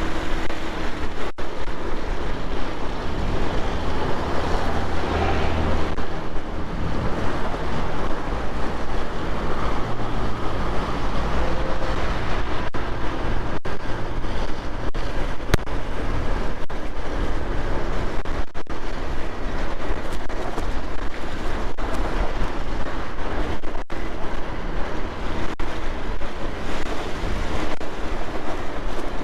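Steady wind noise rushing over the microphone of a riding motorcycle, with the low hum of its engine underneath.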